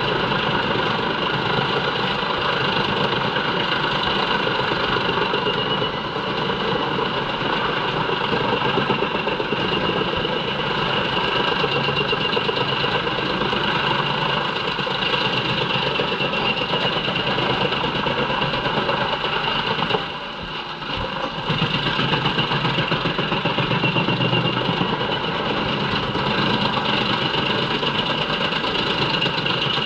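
JENZ HEM 593-R truck-mounted drum chipper running under load, chipping poplar logs fed in by its crane: a steady heavy machine drone with a high whine over it. The sound drops briefly for about a second two-thirds of the way through, then picks up again.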